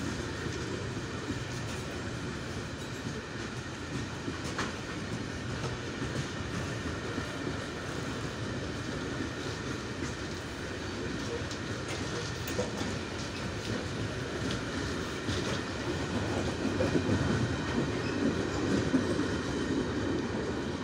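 Long freight train of covered box wagons rolling past, a steady rumble with the clickety-clack of wheels over rail joints and occasional sharp knocks. It grows louder in the last few seconds as the brake van at the tail comes by.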